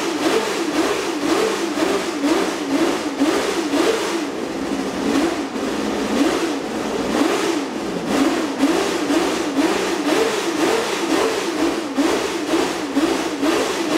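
Honda 1960s V12 Formula One engine running stationary, its revs rising and falling in quick blips about twice a second as the throttle is worked to keep it clean and running.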